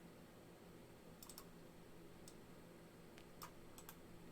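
Near silence with about seven faint, scattered clicks of a computer mouse, two about a second in and a cluster past three seconds.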